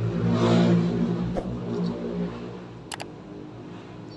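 Subscribe-reminder overlay sound effect: a whoosh that fades out over about two seconds, then sharp mouse-click sounds, one about three seconds in and another near the end.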